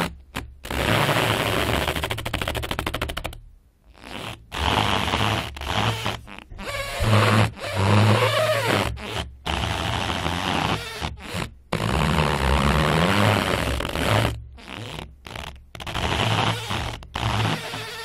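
Rubber slat being flexed and rubbed, giving a series of raspy squeaks and creaks with low, flatulent buzzing and some gliding squeals, in bursts split by brief pauses.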